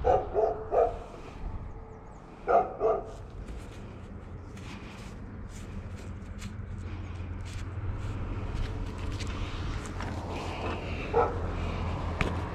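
A dog barking in short bursts: three barks at the start, two more about two and a half seconds in, and a single bark near the end, over a steady low rumble.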